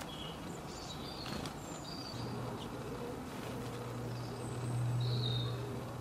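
Low, steady buzzing of a flying insect that starts about two seconds in and swells near the end. Short high chirps of small birds come and go throughout.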